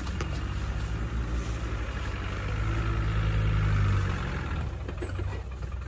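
Land Rover Discovery's engine pulling at low speed off-road. It grows louder for about a second and a half around the middle as the driver gives it more throttle, then drops back.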